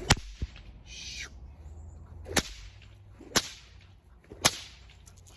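A training rag being snapped to excite a puppy on a back tie: four sharp cracks, spaced about one to two seconds apart, with a short swish about a second in.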